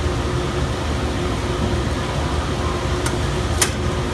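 Workshop dust collector running steadily, a constant rush and hum of air being drawn through the PVC ducting. A single sharp click sounds about three and a half seconds in.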